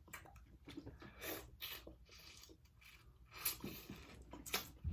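Faint, irregular clicks and soft scrapes of someone handling and eating a seafood boil.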